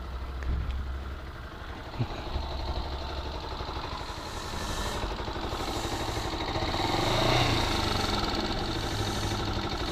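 Motorcycle engine running steadily, with no sign of the odd noise heard earlier, which the riders put down to a loose exhaust bolt or a valve.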